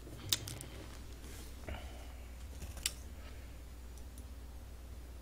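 Two sharp clicks about two and a half seconds apart, with faint rustling between them, over a low steady hum.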